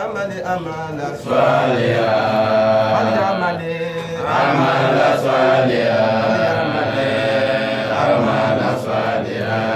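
A man chanting in a drawn-out melodic voice, holding long notes with a few short pauses for breath.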